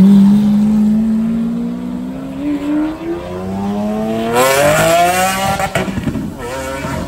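A sports car's engine accelerating away, its pitch climbing for about three seconds, then dropping back after a shift and climbing faster and harsher before the throttle closes. A few sharp pops follow near the end.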